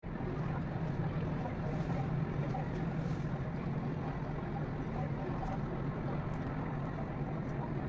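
Steady outdoor background noise, a constant low hum under an even hiss, played back at four times speed.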